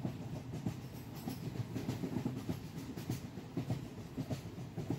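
Passenger train coach rumbling along slowly at a station, heard from aboard, with irregular wheel clicks and knocks from the rails.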